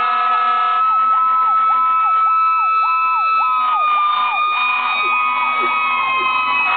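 Emergency-vehicle sirens sounding together as fire apparatus drive off. One siren sweeps rapidly up and down about twice a second. Under it a steady high siren tone slowly drops in pitch in the second half.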